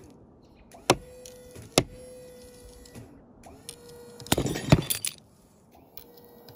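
Sharp metallic clicks and clinks of the steel bolt hanger and pulling link knocking against each other and the granite, with single knocks about one and two seconds in and a quick cluster about four and a half seconds in. A steady mid-pitched hum starts and stops between the knocks.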